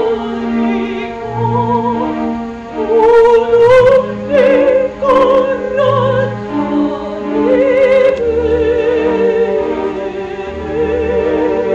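A woman singing opera in full voice, held notes with a wavering vibrato, over an instrumental accompaniment.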